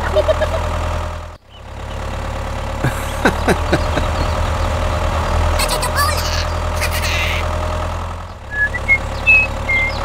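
Engine idling with a low steady rumble that breaks off for a moment about a second and a half in, then resumes. A few knocks sound around three seconds in, and short high chirps come near the end.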